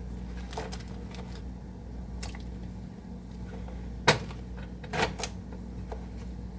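Knife chopping potatoes on a cutting board: a few irregular sharp chops, the loudest about four seconds in, over a steady low hum.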